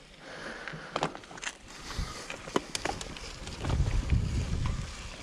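Bicycle rolling over a rough concrete-slab path, rattling with scattered sharp knocks and clicks as it goes over the bumps. A stretch of louder low rumble comes about four seconds in.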